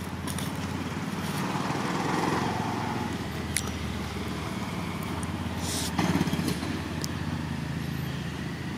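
A motor engine running steadily, swelling a little about two seconds in and again about six seconds in, with a couple of sharp clicks over it.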